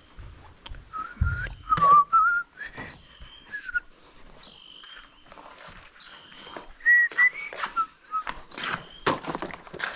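A person whistling a tune in short phrases, the pitch wavering, loudest about two seconds in and again about seven seconds in, with scattered footsteps and knocks.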